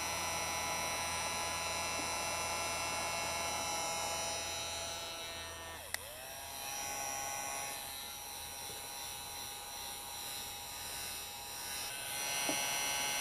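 Handheld electric heat gun running, its fan motor giving a steady whining hum. A click comes about halfway through, after which it runs quieter until near the end, when the fuller hum returns.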